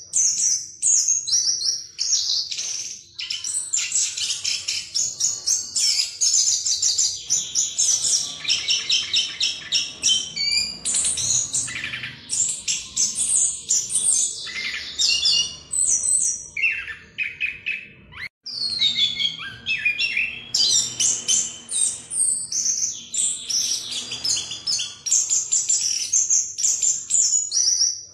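Chestnut-capped thrush (anis kembang) singing its fast, continuous rolling 'ngerol' song: rapid high trills and quick varied phrases run together with hardly a pause, breaking off briefly about eighteen seconds in.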